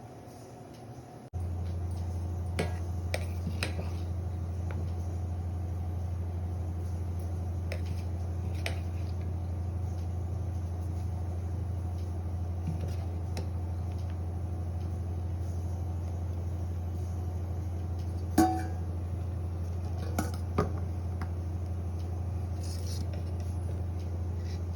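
Scattered clinks and knocks of kitchen utensils against pots and dishes, the loudest about two-thirds of the way through, over a steady low hum that switches on abruptly about a second in.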